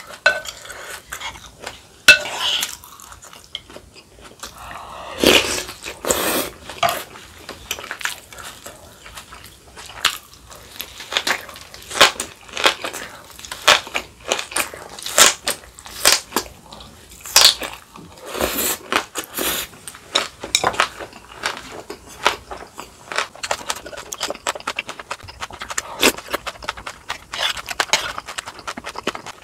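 Close-miked eating sounds: a spoon clinking and scraping in a stone soup bowl, and kimchi being chewed and crunched, in many short irregular clicks and crunches.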